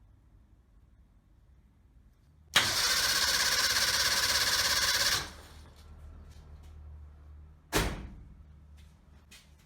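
Suzuki Jimny SJ30's two-stroke three-cylinder engine being cranked over for a start, loud and steady for about two and a half seconds before stopping. A low hum follows, and a single sharp knock comes near the end.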